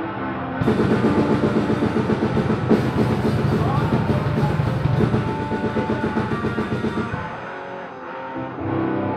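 Hardcore metal band rehearsing live: distorted electric guitars, bass guitar and a drum kit playing a fast, driving passage. The playing thins out about seven seconds in and the guitars come back in near the end.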